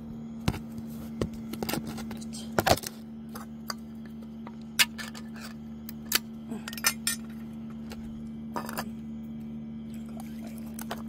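Scattered sharp clicks and clinks of a tin of cat food being opened and handled over a plastic feeding bowl, the loudest a few seconds in, over a steady low hum.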